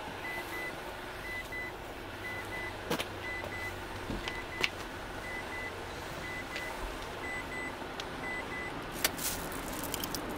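A parked car's warning chime beeping in quick pairs, about one pair a second, sounding while the driver's door stands open; it stops about a second and a half before the end. A few sharp knocks and a short rattle of gear being handled sound at about three seconds, just before five seconds, and about nine seconds in.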